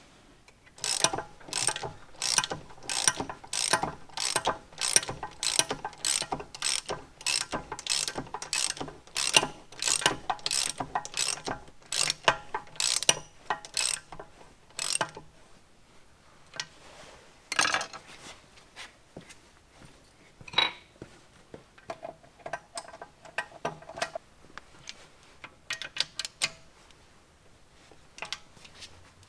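Hand ratchet wrench clicking as it runs down the nuts that draw a Mercury Bravo sterndrive onto its mounting studs: steady strokes about two a second for roughly fifteen seconds, then slower, scattered clicks as the nuts snug up.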